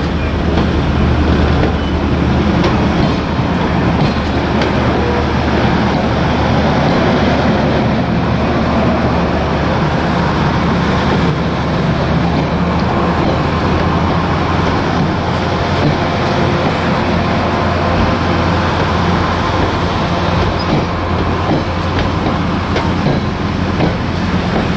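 Passenger train coaches rolling past at close range: a steady rumble of steel wheels on the rails, with a low hum underneath.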